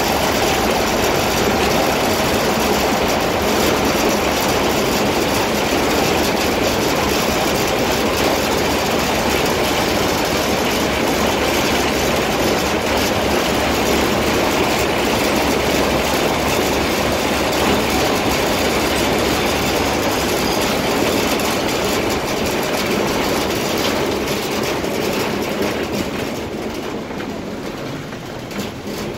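River-crossing cable car running along its overhead cables, a steady mechanical rattle and rumble. It gets quieter near the end as the car reaches the landing.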